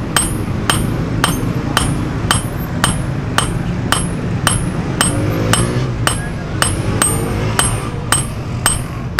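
Hammer blows on a red-hot steel cleaver blank lying on an anvil block, in a steady rhythm of about two strikes a second. Each strike gives a short metallic ring.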